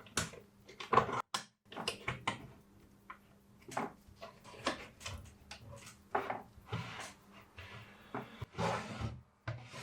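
Scattered light clicks and taps of small tools and the circuit board being handled on an electronics repair bench during hand soldering, with a faint steady hum underneath.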